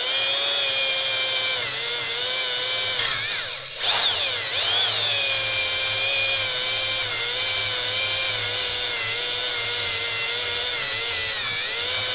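Electric drill spinning an oiled stone cylinder hone inside a bore of a Reliant 750 cc engine, a steady motor whine that sags in pitch and comes back up about four seconds in. The honing takes the shiny glaze off the bore to leave a matte finish for new piston rings to seat.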